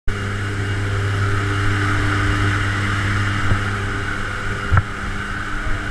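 Jump plane's engine and propeller droning steadily in flight, with wind rushing past the open door. Two short knocks stand out, about three and a half seconds in and, louder, near five seconds.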